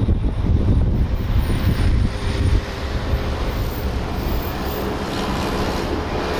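Car driving with wind rushing over a car-mounted camera's microphone: a steady low rumble of wind and road noise that eases a little about two and a half seconds in.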